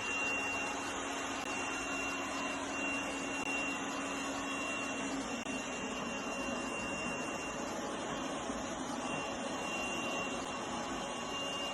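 Robot vacuum cleaner running: a steady whir of its suction motor with a thin high whine over it, and a low hum that drops away about five seconds in.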